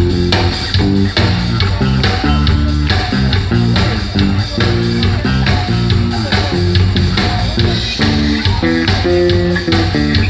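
Live band playing an instrumental passage: guitars over bass guitar and drum kit with a steady beat, no singing.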